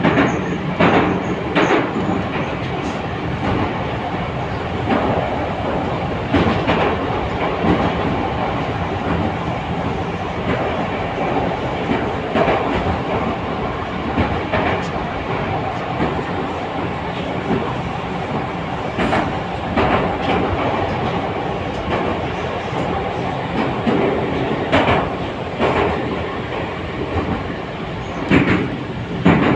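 Running noise inside an 81-722.1 metro car travelling through the tunnel: a steady rumble of wheels and tunnel, with occasional clacks as the wheels cross rail joints.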